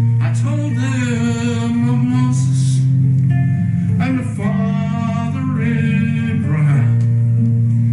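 A song sung by a solo voice over acoustic guitar accompaniment, with two long sung phrases of held, wavering notes over steady guitar chords.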